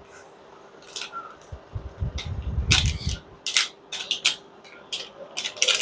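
Kitchen handling noise: a dozen or so sharp clicks and knocks from utensils and containers, with a low rumble about two seconds in.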